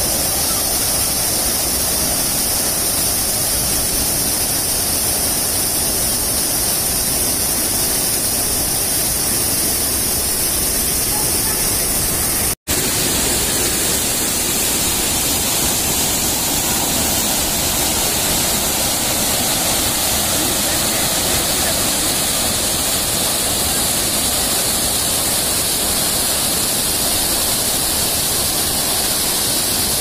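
Steady rush of a tall waterfall crashing into its rocky plunge pool, an even, unbroken noise. It drops out for a split second about twelve seconds in.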